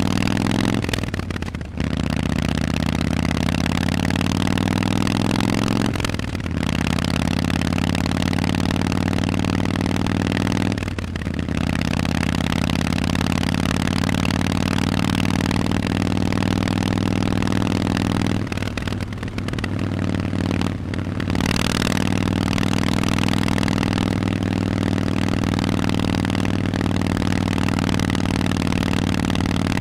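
Harley-Davidson Forty-Eight's air-cooled 1200 cc V-twin with Vance & Hines exhaust, under way: the engine note climbs, broken by several brief dips as the throttle closes, as at gear changes, then holds steady at cruise for the last third.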